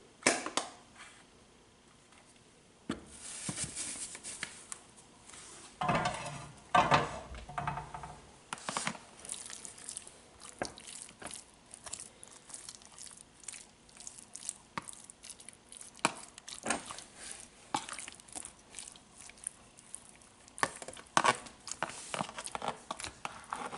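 A metal fork stirring curry-seasoned raw chicken pieces in a plastic container: irregular wet squishes and clicks of the fork against the plastic, busiest about six to eight seconds in.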